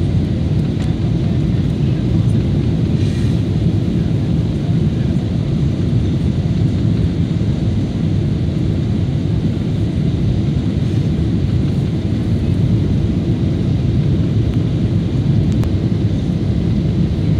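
Steady low rumble inside the cabin of a Boeing 777-300ER on final approach: engine and airflow noise heard from a window seat over the wing, flaps extended.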